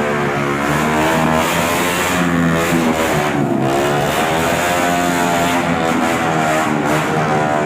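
Engine fitted with a loud aftermarket exhaust, revved repeatedly, its pitch rising and falling.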